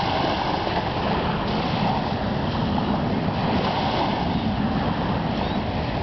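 Steady rushing noise of surf on the beach and wind on the microphone.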